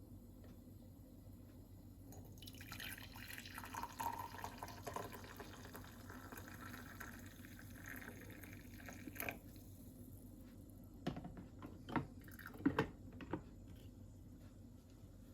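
Liquid pouring and splashing for about seven seconds, then several short knocks or clinks.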